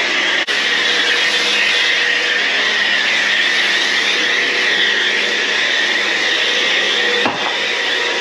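Kärcher K2 electric pressure washer running, its pump humming faintly under the loud, steady hiss of spray from the foam cannon, with a brief drop about half a second in.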